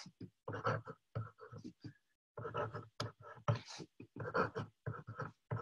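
Pen writing on paper in many short strokes, nib scratching and tapping as brackets and square-root signs are drawn.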